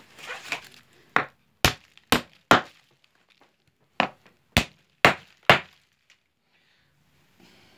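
A hammer driving a nail into a wooden log section, with eight sharp blows in two sets of four and a pause of about a second and a half between the sets.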